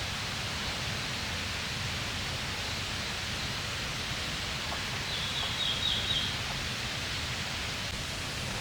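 Steady rushing outdoor ambient noise, with a short burst of quick bird chirps about five seconds in.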